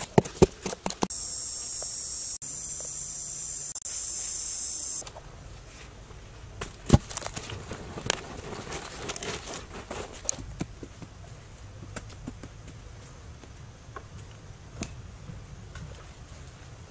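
A wooden digging pole strikes hard, dry soil with sharp knocks in the first second. Then insects buzz steadily and high-pitched for about four seconds, and the buzz stops abruptly. After that come scattered light knocks and scraping in the dirt.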